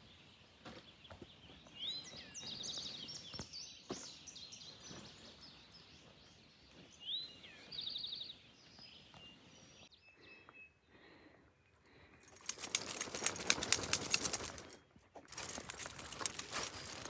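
Songbirds singing, with two bright trilled phrases in the first eight seconds over faint background sound. About twelve seconds in, a loud, even rushing noise takes over. It breaks off briefly and then returns.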